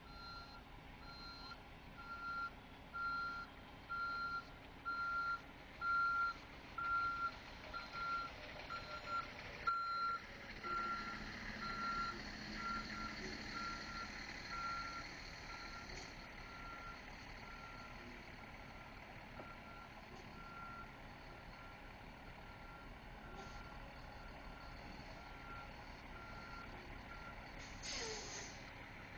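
Truck reversing alarm beeping steadily, about one beep a second, loud at first and fainter from about halfway, over a low engine rumble. A short hiss comes near the end.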